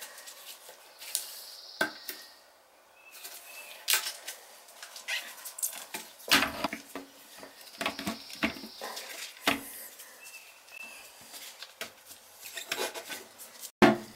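A plastic toilet seat's hinges and mounting hardware clicking and knocking against the porcelain bowl as the seat is fitted, a series of irregular sharp taps and clatters, with one louder knock near the end.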